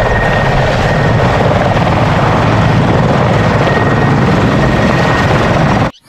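Mil Mi-24 attack helicopter in flight: a steady turbine whine over a rapid, continuous chop from the rotor blades, cutting off abruptly near the end.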